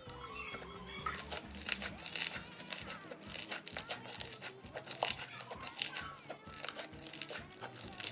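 Slime being squeezed and worked by hand, giving irregular crackling and popping clicks as air pockets burst.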